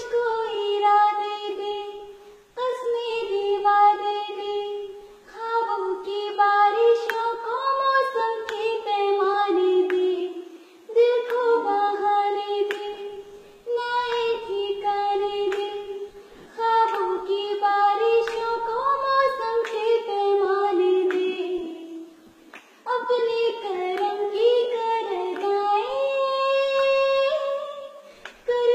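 A young girl singing solo and unaccompanied, in sung phrases a few seconds long with short breaths between them.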